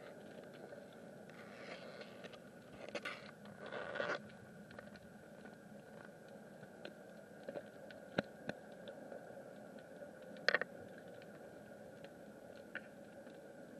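Underwater sound picked up through a camera housing: a faint steady hum with scattered sharp clicks and crackles, and a short burst of scraping about three to four seconds in.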